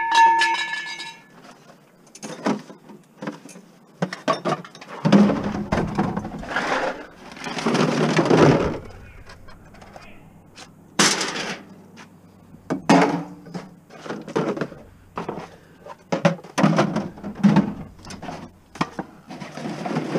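Scrap being pulled by hand from a van's cargo area and set down: an irregular run of knocks and clatters of metal and hollow plastic, with stretches of rustling. A struck metal piece rings and dies away in the first second.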